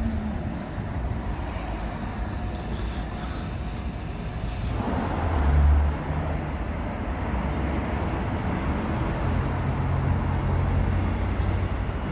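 Road traffic: a steady low engine hum, with a vehicle passing close and loudest about five to six seconds in.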